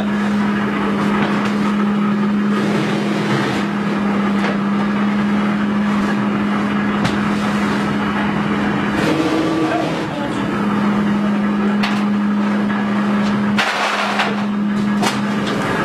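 Nougat cutting machine running with a steady hum that drops out twice, once for over a second and once briefly near the end, over a noisy background with a few sharp clicks.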